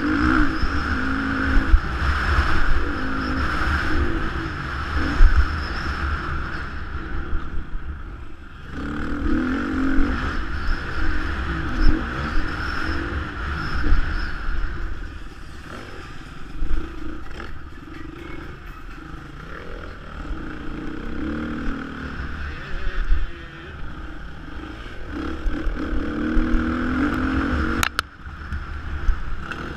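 Off-road motorcycle engine heard from an onboard camera, its revs rising and falling continually with the throttle over a rough dirt track, with heavy low rumble and rattling from the bumps. A sharp knock comes near the end.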